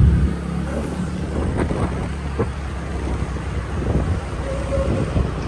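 Wind rushing over the microphone of a moving scooter, with the scooter's road noise underneath as a steady low rumble.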